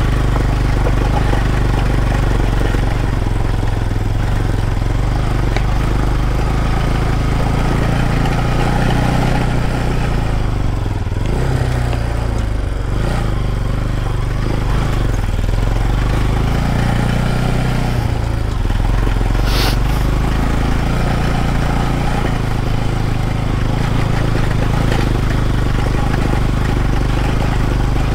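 Motorcycle engine running while being ridden off-road. Its note dips and rises with the throttle from about nine to eighteen seconds in. A brief, sharp high-pitched sound comes about nineteen and a half seconds in.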